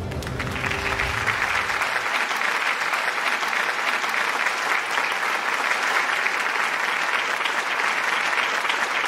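Audience applauding, steady clapping throughout. The last notes of the ensemble's music die away in the first second or two.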